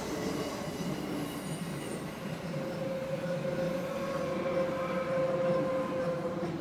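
Loaded double-deck car-transporter wagons of a freight train rolling past with a steady rumble of wheels on rail. A steady wheel squeal comes in about two and a half seconds in and holds until near the end.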